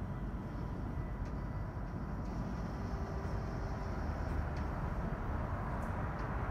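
Guideway switch of a rubber-tyred automated guideway transit line changing position over a steady low rumble of station noise: a faint mechanical whine for about two seconds around the middle as the left channel-shaped guide rail retracts and the straight-running guide rail returns.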